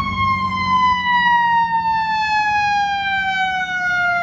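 Siren of an approaching fire department paramedic truck, one long wail falling slowly in pitch, over the low rumble of passing traffic.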